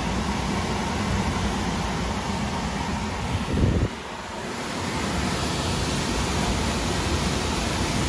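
Steady rushing air-and-machine noise of a rooftop air-conditioning unit as its belt-driven three-phase blower is started. A louder swell comes about halfway through, followed by a brief dip that builds back up.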